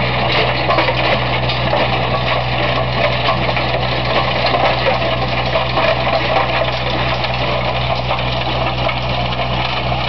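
Tractor engine running steadily while it drives a Massano RSH 145 stone burier through its PTO, the rotor churning soil and stones. There is a constant low engine hum under a dense, gritty clatter from the working rotor.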